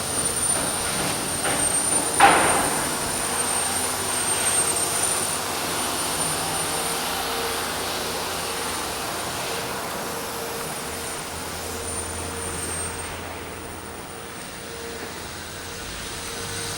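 Steady running noise of a vehicle in motion, with a faint steady hum and a short loud knock about two seconds in.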